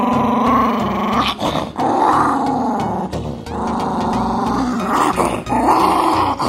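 Small brown poodle growling playfully over a red toy in long rumbling stretches, about four of them with short breaks between.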